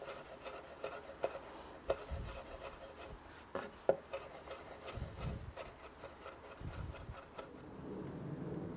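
Chef's knife chopping flat-leaf parsley on a bamboo cutting board: a quick run of light blade-on-wood chops, with a few sharper knocks, stopping near the end.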